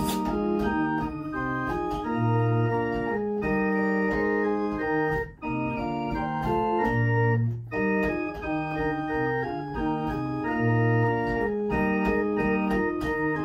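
A small house pipe organ plays held chords with the 8-foot, 4-foot and 2-foot stops sounding together. Low pedal notes come in three times under the chords, and the music breaks off briefly about five and a half and seven and a half seconds in.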